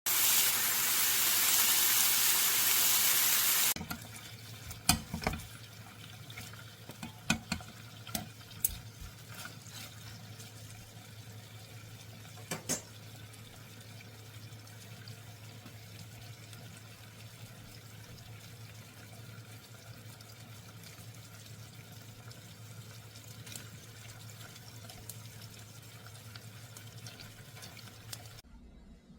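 Water running hard from a tap for about four seconds, then shut off. Then scattered light knocks and clinks of kitchen handling over a faint steady low hum.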